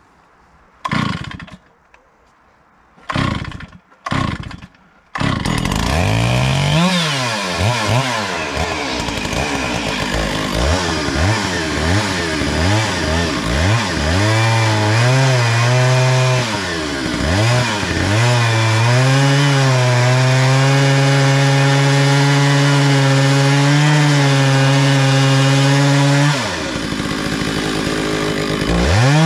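Stihl two-stroke chainsaw on an Alaskan chainsaw mill being pull-started: three short bursts as it fires and dies, then it catches about five seconds in. It is revved up and down for several seconds, then held at a steady high speed under load, as when milling an oak log. Near the end it drops off briefly and revs again.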